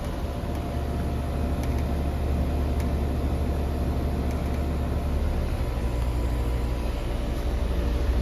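2011 Bryant two-stage Evolution heat pump running steadily in heat mode, its compressor and outdoor fan giving a steady low hum.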